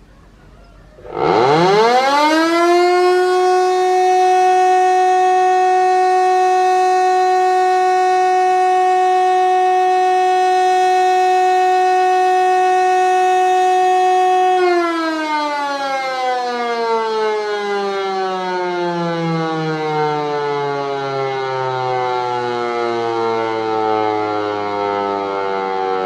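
DEMAY electromechanical fire siren winding up about a second in, its pitch climbing quickly to a steady, loud tone held for about thirteen seconds. It then winds down, the pitch falling slowly.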